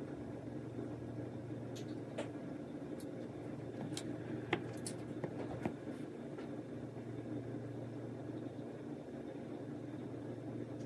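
Steady low room hum with a few faint, sharp ticks over the first six seconds or so: small handling sounds of a fine-tip ink pen being worked over a painted wooden fishing lure.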